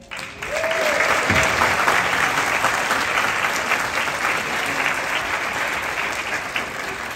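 Audience applauding, starting suddenly and slowly tapering off toward the end.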